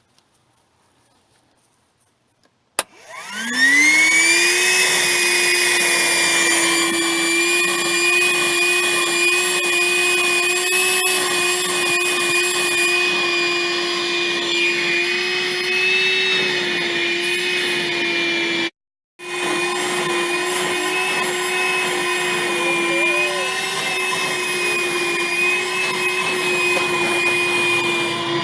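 Vacuum cleaner switched on about three seconds in, its motor whine rising quickly in pitch and then running steadily, cutting out briefly for a moment around two-thirds of the way through.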